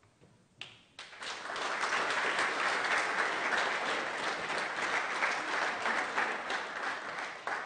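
Audience applauding: two scattered claps, then steady applause from about a second in, tapering off near the end.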